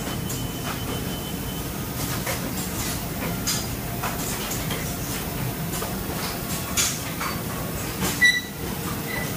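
Automatic printing machine running: a steady mechanical hum with irregular short clacks from its pneumatic actuators and indexing conveyor, every second or two. A brief high-pitched tone sounds about eight seconds in.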